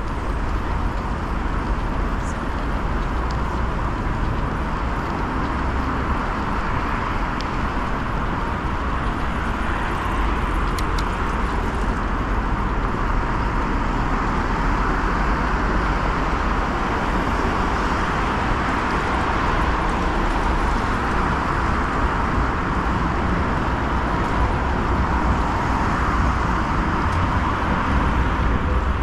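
Steady city street traffic and road noise, heard from a bicycle riding through town.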